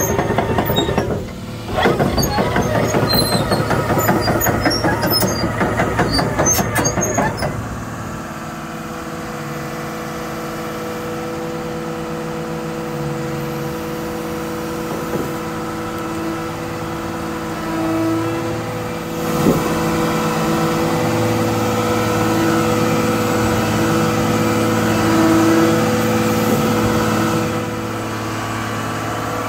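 Emissions-deleted diesel engine of a Tigercat 880D log loader running at idle. A rapid rattling clatter over the first several seconds gives way, about seven seconds in, to a steady hum with a held whine. There is a single brief knock about two-thirds of the way through.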